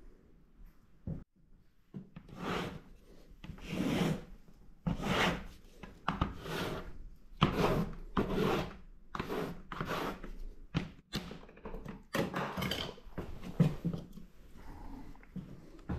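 Wide flat paintbrush scrubbing acrylic paint onto paper clamped to a wooden board, in a run of short rough strokes about one a second.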